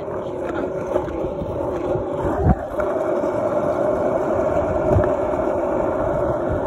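Skateboard wheels rolling fast over asphalt, a steady gritty rumble, with a few sharp knocks, the loudest about two and a half seconds in.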